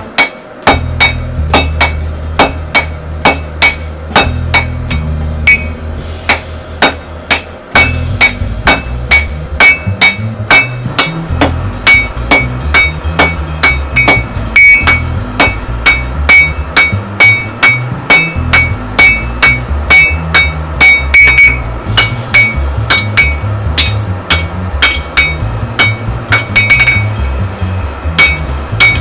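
Hammer blows on a blacksmith's anvil, forging steel in a steady rhythm of about two strikes a second, each with a short metallic ring, over background music.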